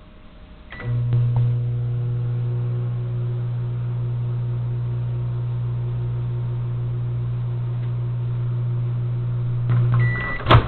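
Microwave oven running with a scratched DVD inside, a steady low hum that lasts about nine seconds. It stops with a short high beep, followed by a sharp click near the end.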